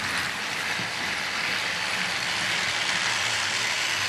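Battery-powered Trackmaster toy trains running together on plastic track: a steady whir of their small motors and gears with the hiss and rattle of wheels on the track.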